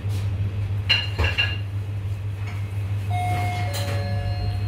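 Café room sound: a steady low hum, with a few quick clinks of crockery about a second in and a faint held tone near the end.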